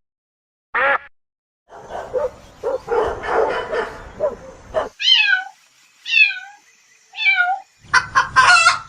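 Animal calls: a single short cry, then a jumble of overlapping calls, then three separate cries that each fall steeply in pitch, and a quick cluster of calls near the end.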